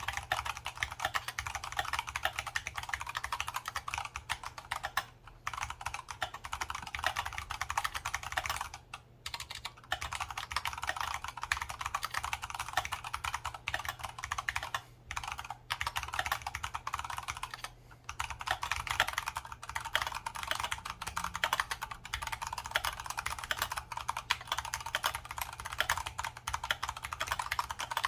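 Typing on an Archon FX2 mechanical keyboard with Kailh Brown tactile switches: a fast, continuous run of key clacks, broken by a few short pauses.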